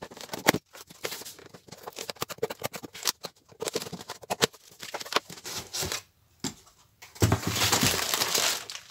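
Scissors snipping and sawing through packing tape on a cardboard box, with rustling of the cardboard. About seven seconds in comes a louder stretch of tearing and crumpling as the packaging is pulled open.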